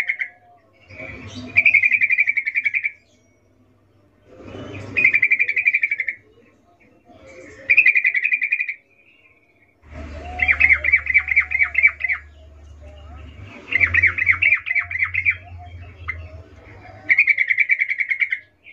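Yellow-vented bulbul (trucukan) calling in about six bursts of rapid chirps, each one to two seconds long and a second or two apart. It is a female's breeding-season call to a male, as the recording is labelled.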